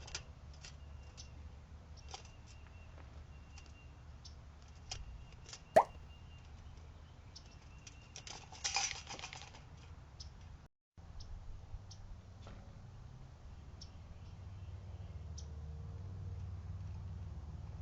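Low wind rumble on an outdoor microphone with scattered light clicks and taps, a sharp click about six seconds in and a short rustling burst around nine seconds.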